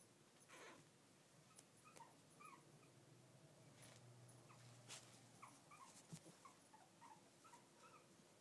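Brussels Griffon–Shih Tzu–mini poodle mix puppy whimpering while it plays with a bigger dog: many short, faint, high squeaky whines, one after another, with a few soft clicks between them.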